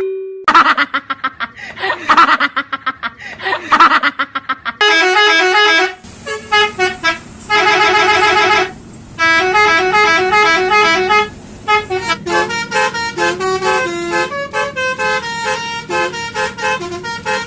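Basuri telolet horn, a multi-tone bus horn, playing a tune as a run of short stepped notes. It holds one wavering note about eight seconds in and plays quicker, choppy notes over the last few seconds.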